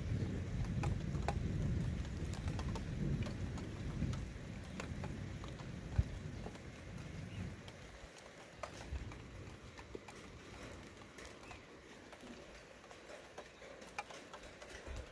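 Rain pattering with scattered individual drops ticking close by. A low rumble of thunder dies away over the first half.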